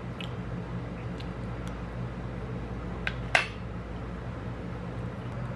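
A fork clicking and clinking against the food container a few times while picking up pieces of California roll, with one louder clink a little past three seconds in.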